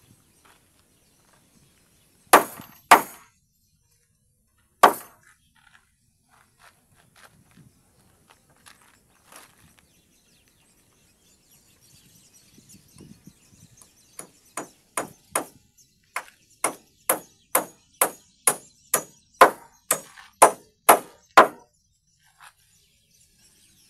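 A hammer driving nails into timber. There are three sharp blows, then a run of about twenty strikes, two or three a second, that get louder as they go.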